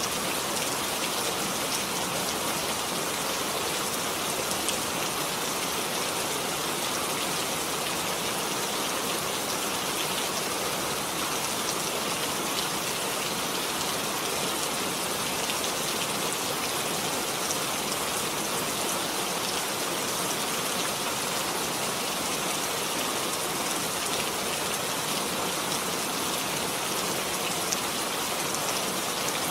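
Steady rainfall with scattered drops pattering on a surface, an even hiss without pause or change.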